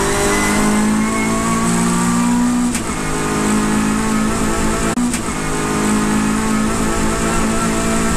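Racing saloon car's engine pulling hard under acceleration, heard from inside the caged cabin. The engine note climbs, breaks briefly for an upshift about three seconds in and again about five seconds in, then climbs again.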